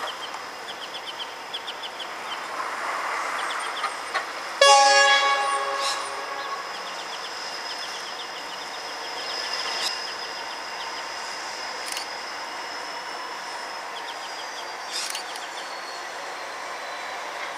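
A diesel locomotive's horn sounds one short blast about four and a half seconds in, the loudest thing here, fading away over about a second. Around it a steady rail-side background with faint, repeated high chirps.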